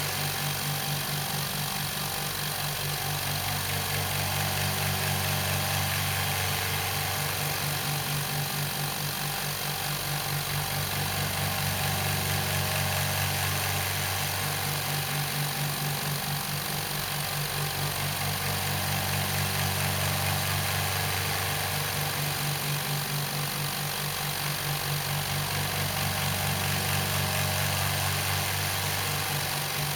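Rocwood 50-litre, 2 hp oil-free air compressor running steadily as it pumps its tank up towards full pressure, about 120 psi. A steady low hum whose loudness slowly swells and fades every several seconds.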